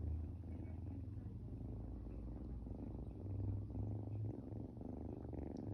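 An 8-week-old kitten purring steadily, a low, rapidly pulsing rumble that swells and eases with its breathing.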